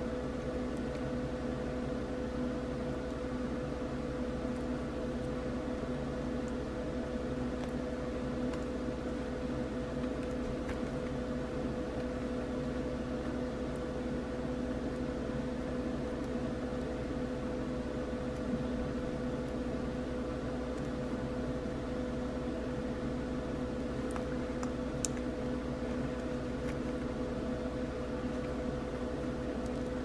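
Steady machine-like hum with a constant low tone over an even hiss; a few faint light clicks here and there.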